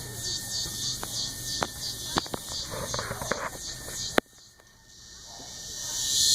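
Cicadas singing in pulsing, high-pitched waves, with a few sharp clicks in the first four seconds. The sound cuts out suddenly about four seconds in, then fades back up near the end.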